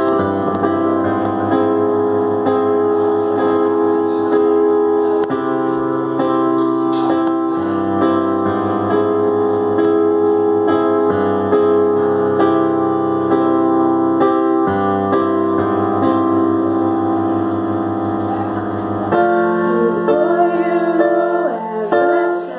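Live keyboard playing held chords that change every few seconds, with a woman's singing voice coming in near the end.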